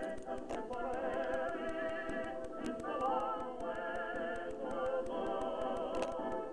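Background music of wordless singing voices holding wavering notes, with a light, quick regular ticking running through it.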